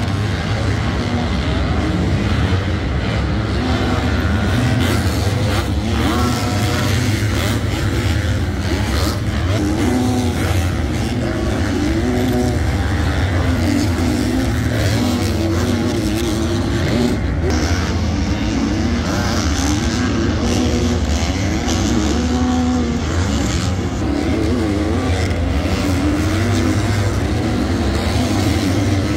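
250cc four-stroke supercross dirt bikes running on track, their engines revving up and down over and over as the riders work the throttle.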